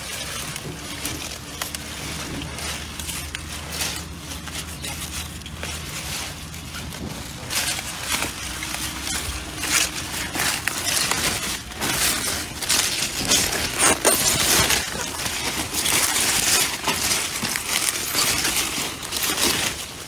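Red radishes being pulled from the soil and their leafy bunches handled close by: a run of crackling rustles and crunches of leaves and stems, growing louder and busier after about seven seconds.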